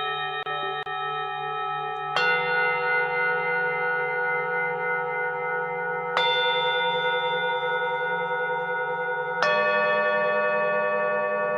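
Singing bowls struck one after another: three strikes about three to four seconds apart, each adding a new pitch while the earlier bowls keep ringing with a slow wavering beat.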